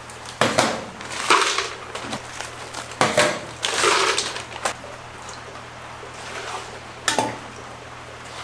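Short metal clanks and scrapes of a ladle in a steel wok and against metal ingredient tins, a handful of separate knocks with the loudest about seven seconds in, over a low steady hum.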